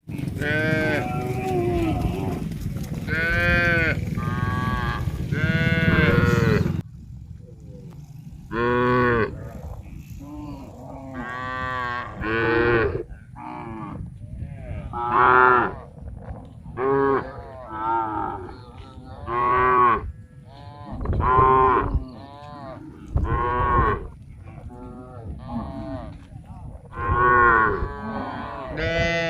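Cattle mooing: many calls one after another, some overlapping, with a low rumble beneath the first several seconds that cuts off abruptly about seven seconds in.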